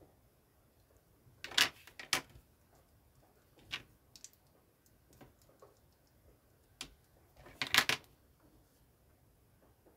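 Plastic LEGO bricks clicking as they are handled and fitted together by hand: scattered sharp clicks, a pair about one and a half to two seconds in and a quick, loudest cluster about eight seconds in.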